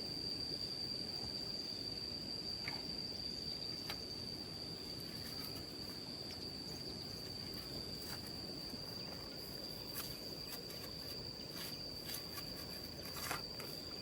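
Insects calling in one steady, unbroken high-pitched drone, with a few faint clicks or rustles over it.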